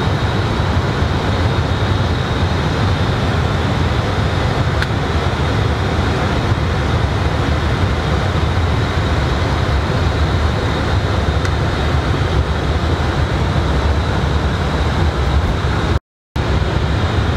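Steady rumble of airflow and engines in the flight deck of an Airbus A320 in flight, with a faint high whine over it. The sound cuts out completely for a moment near the end.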